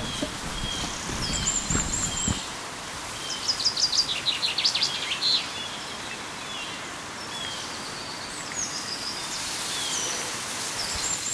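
Small songbirds chirping, with a rapid trill about three to five seconds in, over the steady rush of a small river. A low rumble sounds in the first two seconds.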